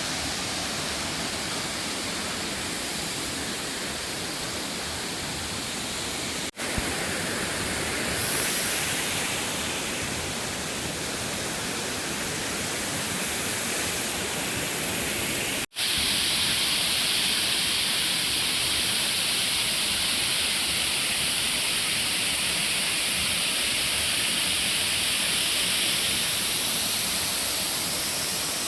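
Waterfall rushing: a steady noise of falling water. It drops out for an instant twice, and after the second break it is a little louder and hissier.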